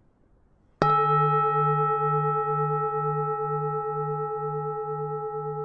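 Buddhist temple bell struck once, just under a second in, then ringing on with a low hum that pulses about twice a second and fades slowly.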